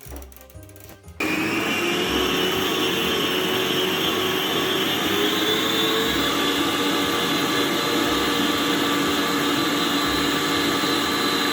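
Electric mixer switched on about a second in and running steadily, beating mascarpone.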